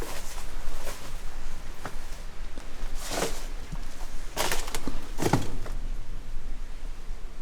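Irregular footsteps crunching and scuffing over rough ground, with three or four louder steps around the middle.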